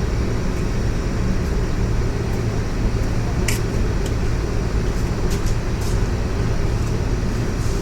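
A steady, loud low mechanical hum from a running machine in the workspace, with a few light metallic clicks of hand tools on motorcycle bolts.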